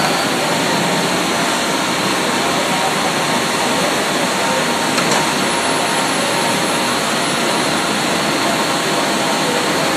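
Index ABC CNC turning lathe running: a steady, even rushing machine noise, with coolant washing inside the enclosure.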